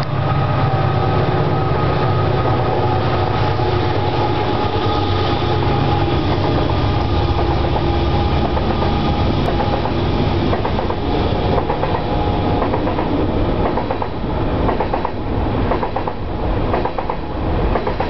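Train passing close by, loud and steady: a low running rumble with a few steady tones at first, then after about ten seconds a rapid rattle of wheels over the rails comes to the fore.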